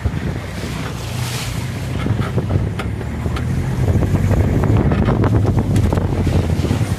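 Vehicle engine running steadily with wind buffeting the microphone at an open window, while the vehicle moves slowly along a rough track. Several brief scrapes and knocks come through as roadside brush and branches touch the vehicle's side.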